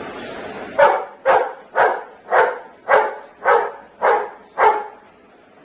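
Golden retriever barking eight times at an even pace, a little under two barks a second, counting out the answer to seven plus one.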